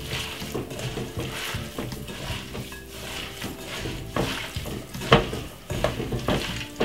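Hands rubbing oil and seasoning into raw lamb pieces in a glass bowl: irregular wet squishing and rubbing, with small knocks against the bowl and a sharper knock about five seconds in.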